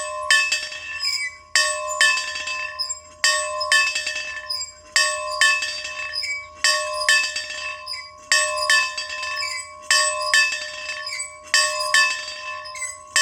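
A bell being rung repeatedly in a steady rhythm: a strong clang about every second and a half, with lighter strikes between. Each stroke keeps ringing into the next.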